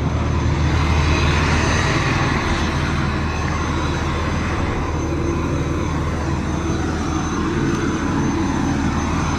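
Flatbed straight truck's diesel engine idling: a steady low drone with an even hiss over it.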